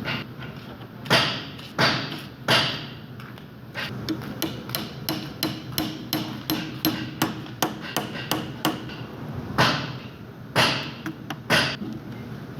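Hammer strikes: three heavy blows, then a run of lighter, quicker taps at about three a second, then three more heavy blows near the end.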